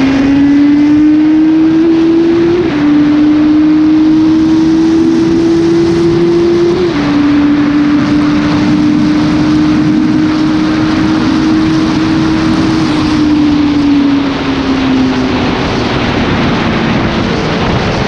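Kawasaki Z900's inline-four engine through an Akrapovic exhaust under hard acceleration at high road speed, the pitch climbing and dropping at two upshifts about three and seven seconds in, then holding steady before falling away as the throttle is eased near the end. A loud rush of wind noise runs underneath.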